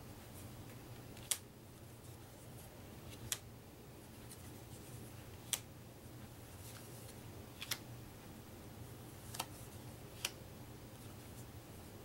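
Vintage Rack-O paper playing cards handled one at a time on a wooden tabletop: about six sharp card clicks, one every second or two, as each card is taken off the deck, over a faint low hum.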